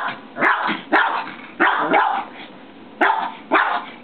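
Shih tzu barking at a toy in about six short, sharp barks, with a pause of about a second in the middle.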